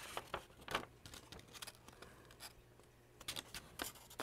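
A sheet of paper being handled and folded in half by hand: faint, scattered crinkles and light taps as it is turned and creased.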